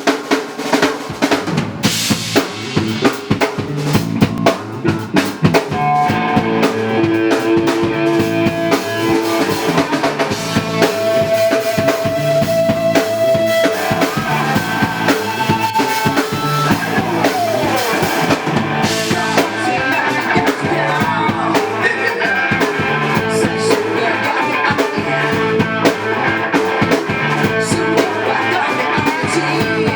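Rock band playing live: the drum kit opens alone with kick, snare and rimshot hits, then bass, guitars and other sustained instruments come in about six seconds in for a full-band instrumental intro.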